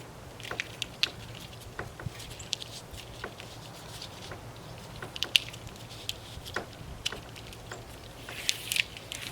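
Handling noise: irregular small clicks, taps and scrapes, with a low steady hum underneath.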